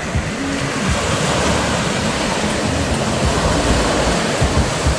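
Sea waves breaking and washing up the shore, a steady loud rushing of surf.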